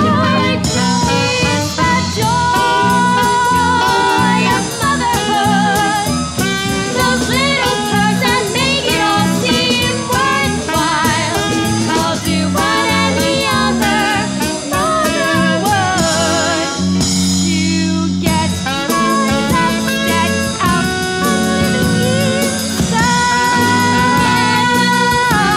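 Music: a swing-style show tune with a voice singing over the instrumental backing.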